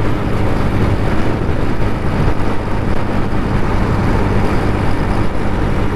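Benelli Leoncino 250 motorcycle's single-cylinder engine running steadily at riding speed, under a constant rush of wind over the microphone.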